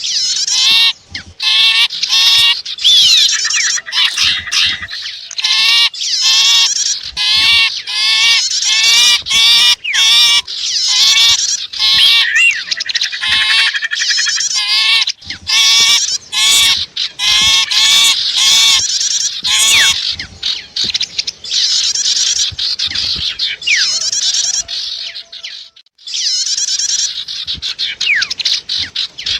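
Bird-lure recording of small songbird calls, sipu and prenjak (prinia) mixed together. For about the first twenty seconds a short wavering call note repeats steadily, roughly one and a half to two a second, over high twittering. After that the notes give way to dense continuous twittering, broken once briefly near the end.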